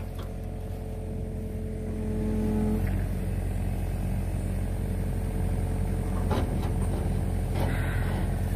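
Engine of the machine lifting the locomotive frame panel on chains, running steadily and revving up slightly about two seconds in before settling. Two light knocks come later on.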